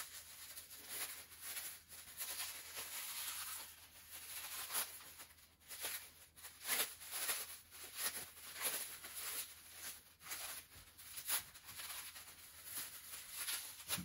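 Hands pulling apart and handling a strip of ceramic fiber blanket: soft, irregular rustling and tearing in short scratchy bursts.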